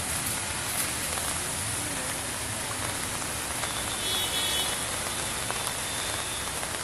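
Heavy rain falling steadily, an even hiss, with a faint high tone about four seconds in.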